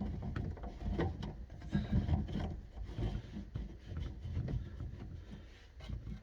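Plastic drain fittings being handled and hand-tightened: irregular rubbing and scraping with scattered light knocks and clicks.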